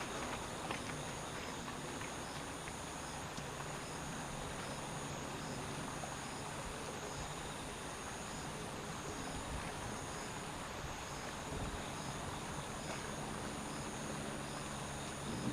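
Steady, high-pitched insect trilling, with a faint pulse repeating about once a second, over a low, even background rumble.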